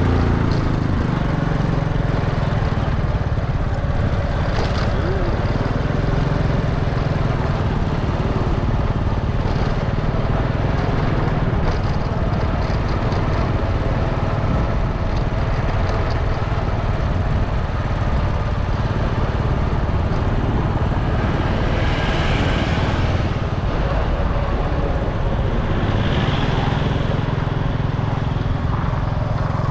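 Small motorbike engine running steadily while riding along a road, under an even rush of wind and road noise; a brighter hiss swells twice near the end.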